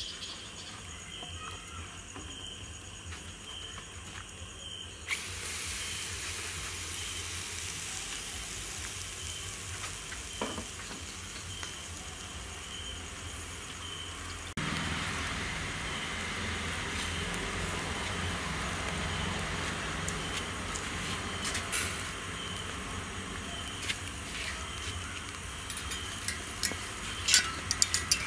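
Whole marinated chicken sizzling on a grill: a steady hiss that gets louder in steps about five seconds in and again halfway through, with a few light clicks near the end.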